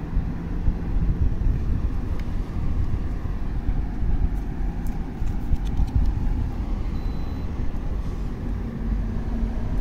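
A car's engine idling, a steady low rumble, with a few faint clicks about halfway through.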